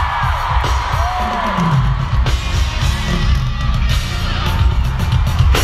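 Live pop music over an arena's sound system, heard from the audience stands, loud and heavy in the bass, with a falling glide in pitch about a second in.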